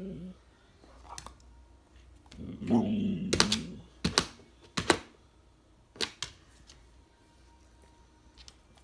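A dog's paw and claws tapping on a painted window sill while swatting at a fly: about four sharp taps over a few seconds, with a short, louder muffled scuffle just before the first.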